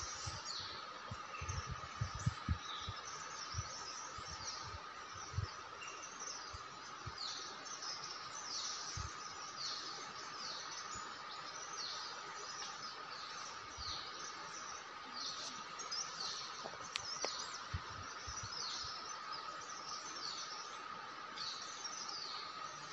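Birds calling over and over with short, downward-sweeping chirps, over a steady high insect drone. A few low thumps in the first few seconds.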